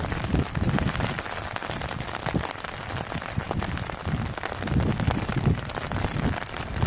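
Rain falling steadily, with many small pattering drop hits, and wind rumbling on the microphone in gusts near the start and end.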